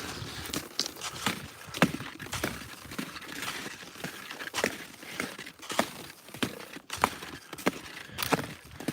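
Crunching on snow while skiing behind a malamute: a train of irregular sharp crunches and clicks, roughly one or two a second.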